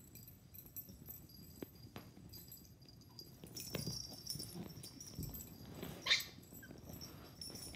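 A puppy and a cat wrestling on carpet: soft scuffling and bumps of paws and bodies. About six seconds in the puppy gives one short, high yip.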